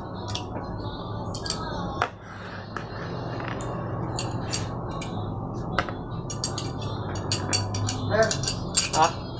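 Sharp metal clicks and scrapes of a 1911 pistol's steel slide and frame being handled and fitted together during field-strip assembly, coming more often near the end, over a steady low hum.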